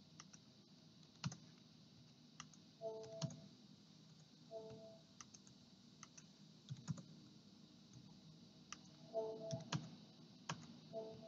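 Faint, irregular clicks and taps of a computer keyboard and mouse, a few seconds apart, with a few brief soft tones among them.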